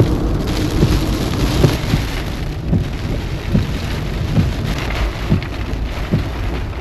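Heavy rain pouring down in a thunderstorm, with large drops landing close by in irregular low thuds.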